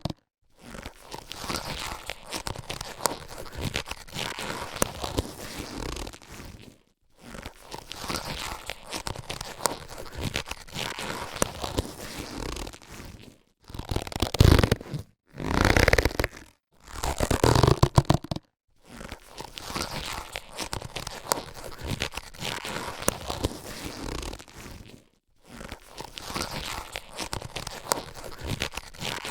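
Latex surgical gloves being handled, giving crinkly rubbing and rustling in stretches of several seconds separated by brief silences. A few louder bursts come in the middle.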